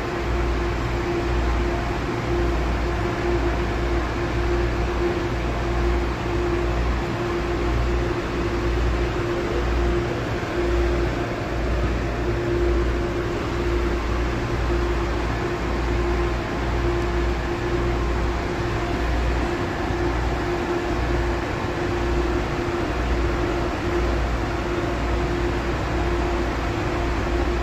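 Steady in-cabin noise of an MTR Airport Express train: an even low rumble with a steady hum.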